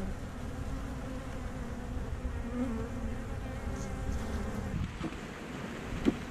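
Honey bees buzzing in a mass around an opened hive, a hum that wavers up and down in pitch. A single short knock near the end.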